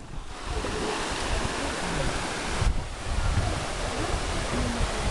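Waterfall rushing steadily, with wind gusting on the microphone.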